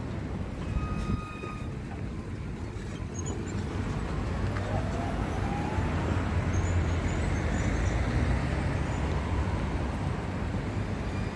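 City street traffic noise: a steady low rumble of passing vehicles, with a brief thin high squeal about a second in and a faint rising whine near the middle.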